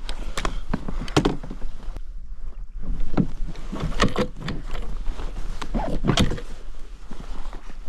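Kayak paddle and gear being handled in a kayak: an irregular series of knocks, clicks and rustles against the hull.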